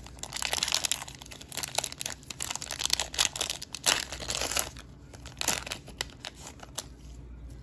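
Foil wrapper of a Panini Prizm basketball card pack being torn open and crinkled, with dense crackling for about five seconds, then a few lighter rustles near the end.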